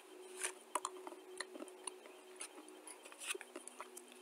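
Close-up eating sounds of dry clay powder: irregular small crunches and clicks from chewing and from the spoon in the bowl, over a faint steady hum.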